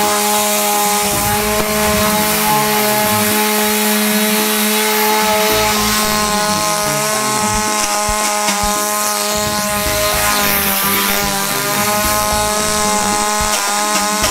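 Petrol chainsaw engine running at a steady high speed, its pitch holding almost constant.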